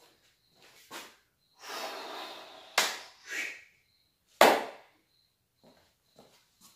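A short rustle, then two sharp knocks about a second and a half apart, the second the loudest, with a few faint taps after: handling and knocking noise in a small room.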